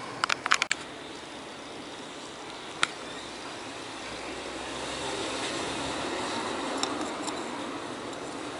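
Sharp clicks of a small circuit board and tools being handled on a workbench: a quick run of about four in the first second, then single clicks near three seconds and twice near seven. Beneath them a steady rushing background noise swells in the middle and eases off.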